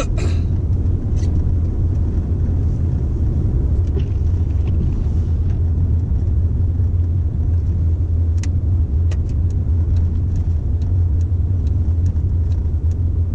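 Steady low rumble inside a car driving on a snow-covered road, the engine and tyres droning together. Faint scattered ticks come in over the second half.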